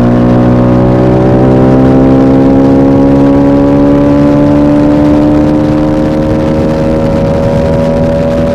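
TVS Apache RR310's 312 cc single-cylinder engine pulling steadily in gear, its pitch rising slowly. About five and a half seconds in it eases off a little and holds a steady note.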